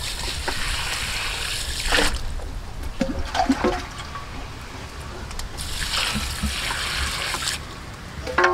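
Water pouring into a metal bowl of dried mushrooms and glass noodles to soak them, in two pours of about two seconds each, the second starting a little past halfway, with a few light knocks in between.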